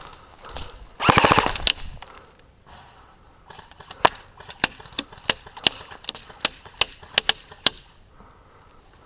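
Airsoft gun firing: a short fully automatic burst about a second in, then about ten single shots in quick, uneven succession.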